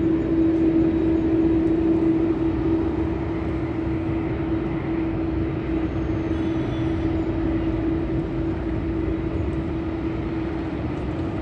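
Aircraft engines running steadily, a loud constant hum over an even rumble.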